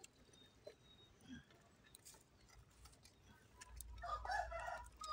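Faint scattered ticks and crackles from a small wood fire burning under a cooking pot, followed near the end by a louder, busier burst of sound with a low rumble under it.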